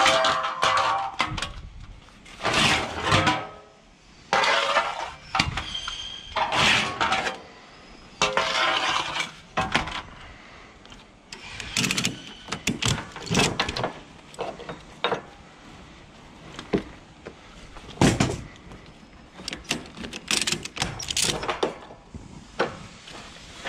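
Metal ratchet buckles and hooks of cargo ratchet straps being worked by hand on a truck's load of metal profiles: irregular clanks, rattles and clicks, some ringing briefly, with short pauses between them.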